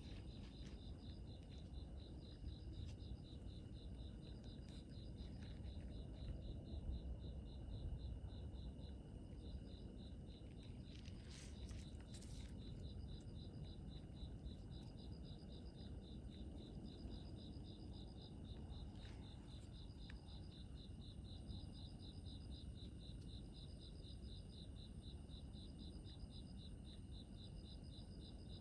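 Insects, likely crickets, chirping in a steady high-pitched pulsing trill, with a second higher trill starting and stopping over it, above a low background rumble.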